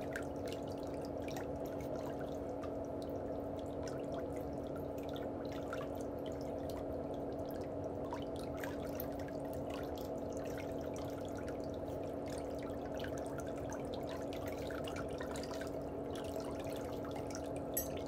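Steady trickling, dripping water over a low steady hum, with scattered faint small ticks and one brief sharp click near the end.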